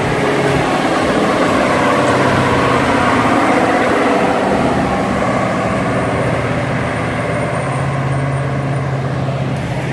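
Road traffic: vehicle engines running with a steady low hum, swelling a few seconds in and then easing off as vehicles pass on the road below.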